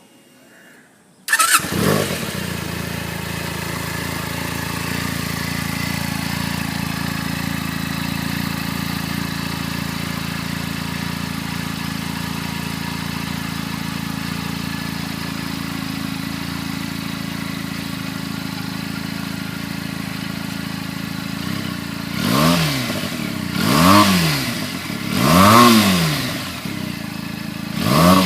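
Benelli TNT 300's parallel-twin engine on its stock exhaust starting about a second in and idling steadily, then revved in four short throttle blips near the end, each rising and falling in pitch.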